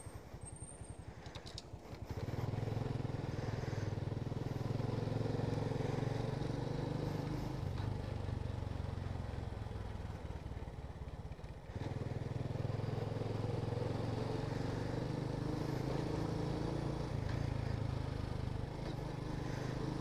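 Motorcycle engine running under way, with a steady low drone. It picks up about two seconds in, drops off briefly a little past the middle, then picks up again.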